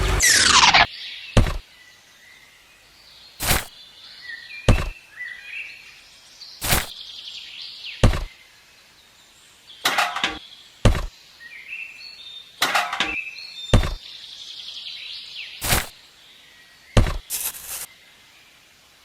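A short falling whine at the start, then a series of about fifteen sharp knocks at irregular intervals, roughly one a second, with faint bird chirps between them.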